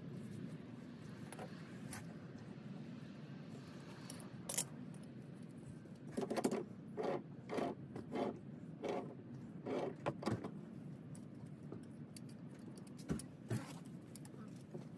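Metal wrenches clinking and knocking against a brass pipe fitting as it is worked on: a run of short clinks about every half second for several seconds, with a few single clicks before and after, over a low steady background rumble.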